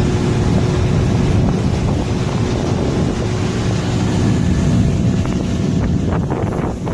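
Small fishing boat's outboard motor running steadily underway, with wind buffeting the microphone.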